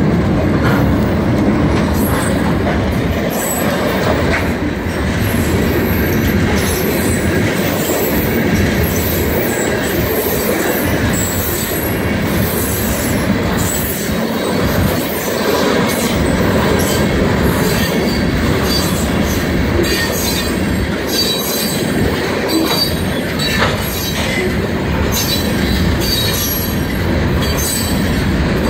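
Diesel freight train passing over a road crossing: Georgia Central locomotives go by first, then a long line of coal cars rolls past, their wheels clacking over the rail joints, with short high-pitched squeals that become more frequent later on.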